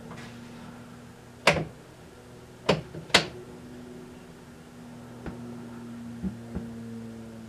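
Steady mains hum from a Bally Squawk & Talk pinball sound board's amplified speaker, broken by about six sharp clicks. The loudest clicks come about a second and a half and three seconds in.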